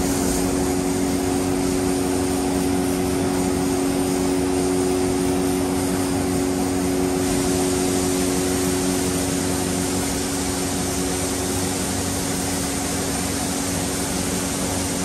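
Compressed-air spray gun hissing steadily as it sprays gloss black paint onto an alloy wheel, over a constant machine hum. The hiss turns brighter about halfway through.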